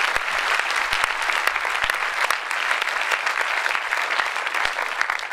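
Audience applauding, with many people clapping at once.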